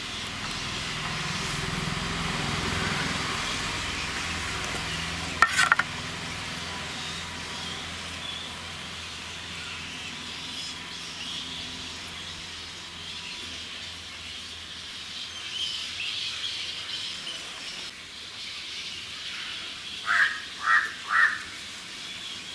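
Steady outdoor background hiss with a low rumble that swells and fades over the first five seconds, a sharp clatter about five seconds in, and three short bird chirps near the end.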